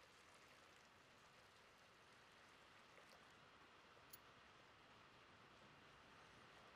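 Near silence: faint room tone, with one small click about four seconds in.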